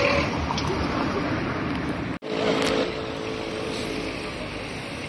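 City street traffic: steady engine and tyre noise of passing cars, cutting out for an instant about two seconds in, then louder for a moment as a car goes by.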